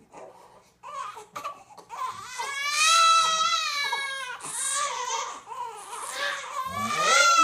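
Baby crying: after a quiet start, a long wailing cry from about two and a half seconds in, then shorter cries and another rising wail near the end.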